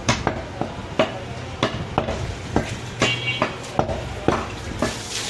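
A heavy meat cleaver cutting goat shoulder meat and striking the wooden stump chopping block: a string of sharp, uneven knocks, about two a second.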